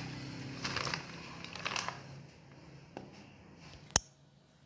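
Faint soft rustling and light taps of a spoon scooping dry cornflour into a mixing bowl, with one sharp click about four seconds in.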